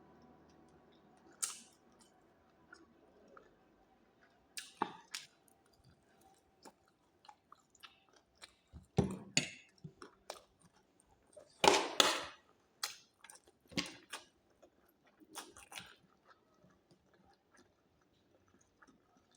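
Close-up eating sounds: a person chewing and biting food, with scattered small wet clicks and a few louder bites, the loudest about halfway through.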